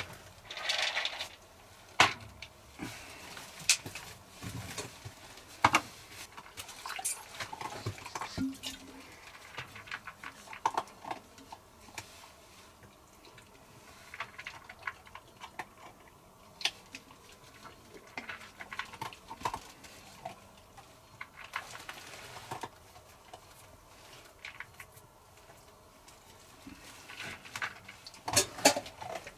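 Scattered clinks, knocks and rustles of metal camp cookware being handled: pots and lids set down and moved and a canteen and cup handled, with a busier cluster of knocks near the end.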